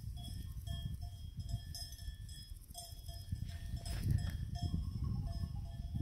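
Cowbells on grazing cattle clanking irregularly, a few short ringing strokes a second, over a low rumble.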